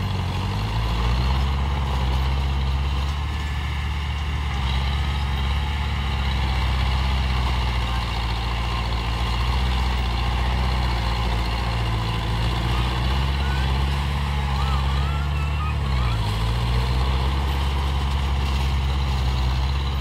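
Diesel engine of a small crawler bulldozer pushing soil, running steadily under load. Its pitch dips briefly and recovers twice, once near the start and once about three-quarters of the way through.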